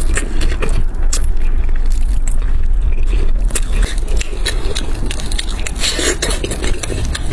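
Close-miked chewing and crunching of fried food, with many irregular small crackles and clicks.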